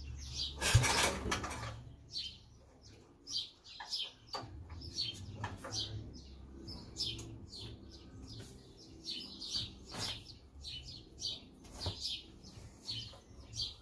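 Small birds chirping repeatedly, with short high calls throughout, over a faint low rumble. A brief burst of noise comes about a second in.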